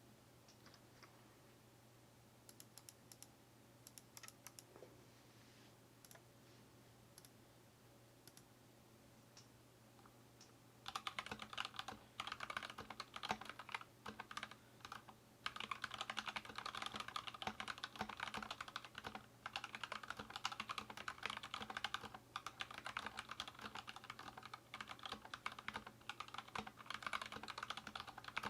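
Anne Pro 2 mechanical keyboard with stock Gateron Red linear switches and re-lubed stabilizers being typed on: a few scattered, quiet keystrokes at first, then, about eleven seconds in, fast continuous typing with a few brief pauses.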